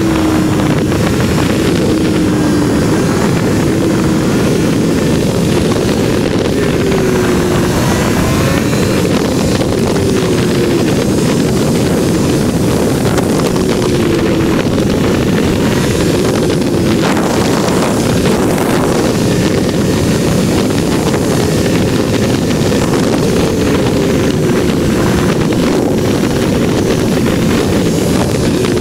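2023 Triumph Tiger 1200 Rally Pro motorcycle, its inline three-cylinder engine running at road speed under a steady, loud rush of wind and engine noise.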